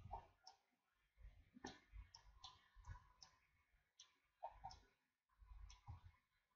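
Faint, irregular clicking of a computer mouse and keyboard, about a dozen separate clicks.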